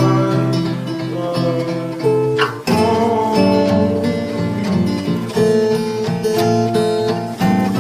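Music: acoustic guitar playing a chord pattern. About two and a half seconds in, a rising sweep leads into a fuller arrangement with deeper bass notes underneath.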